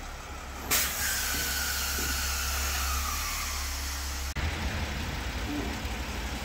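Compressed air hissing loudly out of the car transporter truck, starting sharply about a second in and lasting about three and a half seconds with a faint falling whistle, over the steady low hum of the truck's engine.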